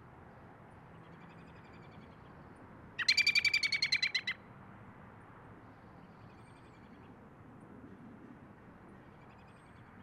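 American robin giving a rapid chattering call: a quick run of about a dozen notes lasting just over a second, about three seconds in. Fainter, similar calls come before and after it.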